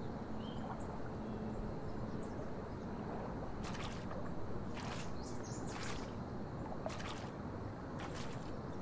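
Soft water splashes, about once a second, from someone wading down pool steps, over a steady low rumble of ambience. The splashes begin about three and a half seconds in.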